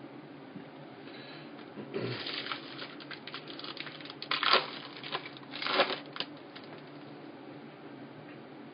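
A trading card pack's wrapper being torn open and crinkled, with the cards handled, in a few rustling bursts between about two and six seconds in, the loudest two near the middle.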